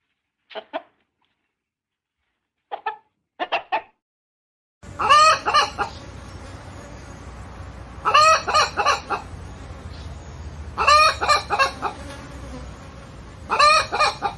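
Domestic hen calling: four bursts of several pitched notes each, about every three seconds, over a steady background hiss. Before them, a few short separate calls over silence.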